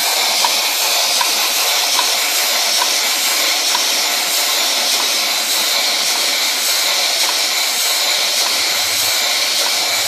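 Rebuilt Goulds boiler feed pump running on compressed air with no pressure on its water end: a steady loud hiss of exhausting air with a light, regular knock a little more than once a second, which comes from running without back-pressure.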